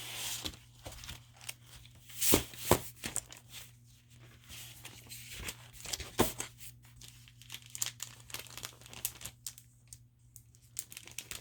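Packaging crinkling and tearing as craft paper pads are handled, in irregular crackles with a few sharp louder ones about two seconds in and again near six seconds.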